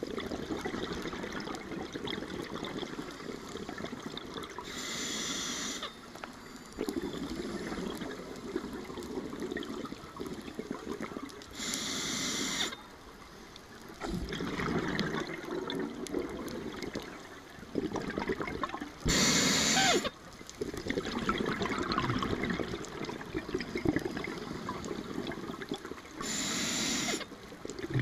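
Scuba diver breathing through a regulator underwater: four short hisses of inhalation, about seven seconds apart, each followed by a few seconds of bubbling as the exhaled air escapes.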